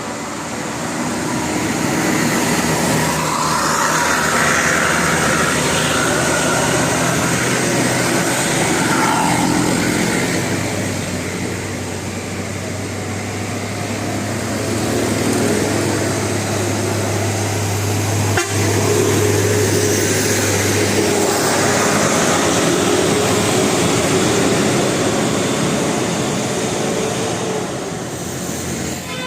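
Heavy road traffic, buses and trucks passing with engine noise; a low engine drone swells about ten seconds in, and a steady horn tone is held through much of the last third.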